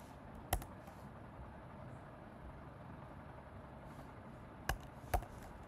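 A few separate computer keyboard keystrokes over a steady faint hiss: one about half a second in, then two close together near the end.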